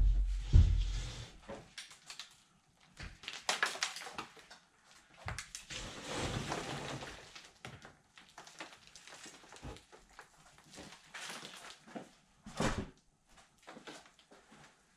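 Rotten, waterlogged plywood boat floor being wrestled up and out of an aluminium hull: heavy thumps at the start, then intermittent scraping and knocking as the board is shifted, with one sharper knock late on.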